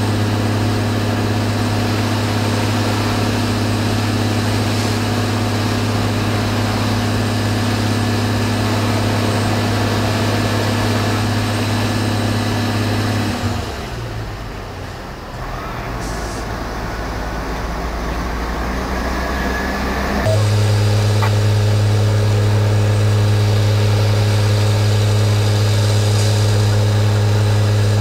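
A fire apparatus diesel engine runs steadily at a constant fast idle, a deep, even hum that fills the sound. About halfway through it drops out for around seven seconds, leaving a quieter low rumble, then comes back just as before.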